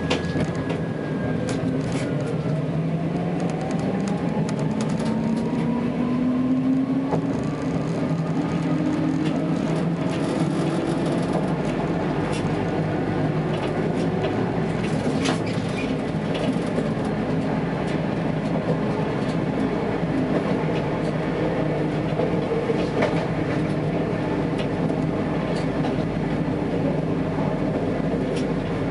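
Tatra T3S tram running along its track and gathering speed: a whine from the traction motors and gearing rises in pitch over the first ten seconds or so, then holds steady, over the rumble and scattered clicks of the wheels on the rails.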